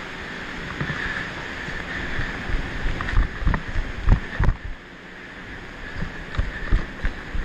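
Rustling of clothing and gear against a body-worn action camera's microphone as an airsoft player moves about, with irregular knocks and thumps from footsteps and handling that bunch up a few seconds in and again near the end.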